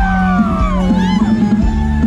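Live band music played loud through a stage PA system: a steady beat and bass with a singer's voice over it.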